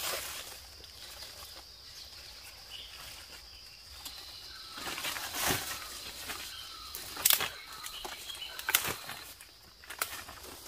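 Dry roots and leaves rustling as a clump of freshly dug roots is shaken and handled on a forest floor, with several sharp knocks in the second half. A steady high drone of insects runs behind it.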